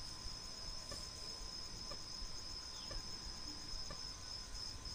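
Faint background noise: a steady high-pitched whine over low hiss, with faint ticks about once a second.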